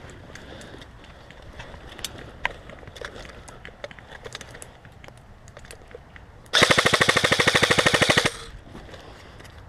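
G&G CM16 SRL airsoft electric rifle firing one full-auto burst of about a second and a half: a fast, even rattle of roughly twenty shots a second that starts and stops abruptly. Faint scattered clicks come before it.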